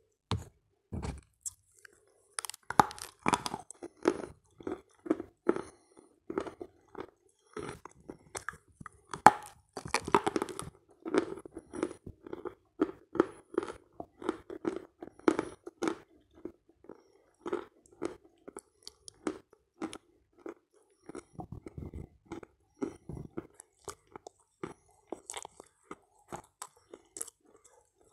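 Close-miked chewing of dry, soft edible clay 'halva' (kaolin with pink Astana clay and Nizhny Novgorod clay crumbs): a steady run of crunches, about two a second.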